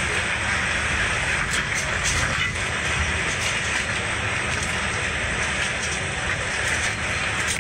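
Steady rush of a fast passenger boat's engines and hull through the water, heard inside the passenger cabin, with a low rumble under a hissing wash and a few faint knocks, as the boat runs through two-metre waves.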